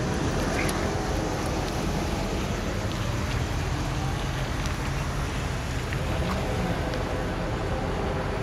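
Diesel locomotive running as it slowly approaches, hauling a passenger train: a steady low engine drone, with a few faint clicks.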